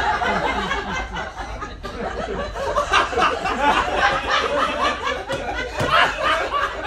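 Audience laughing, many voices at once, swelling around three seconds in and again around six.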